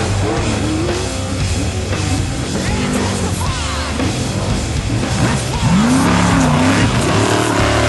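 Music with a race vehicle's engine running underneath it.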